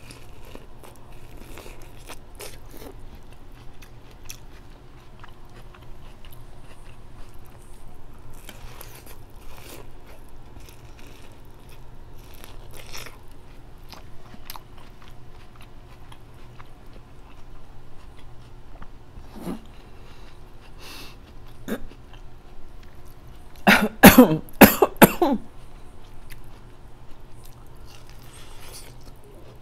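Close-miked eating sounds: biting and chewing with small crunches and clicks. About 24 seconds in comes a brief, loud bout of coughing, several bursts in quick succession.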